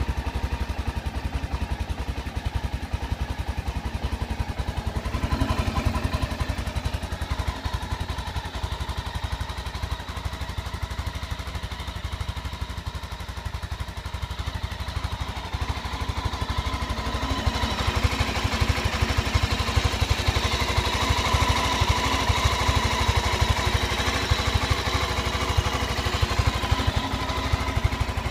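Honda XL 600LM's air-cooled single-cylinder four-stroke engine idling steadily, a bike with its original, never-overhauled engine, just after a cold start. It grows a little louder in the second half.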